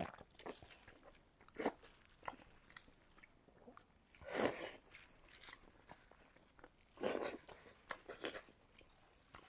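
Close mouth sounds of someone biting and chewing fatty pork belly: scattered short clicks and smacks, with two longer, louder chewing sounds about four and seven seconds in.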